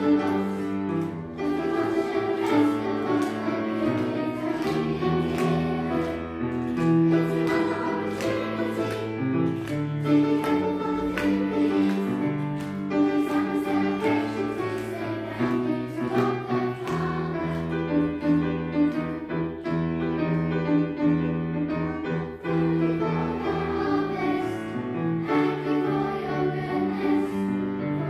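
Children's choir singing a song together, with instrumental accompaniment underneath.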